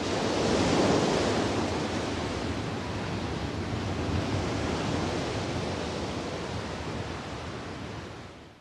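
Waves washing: a steady rushing sound that swells about a second in and fades out near the end.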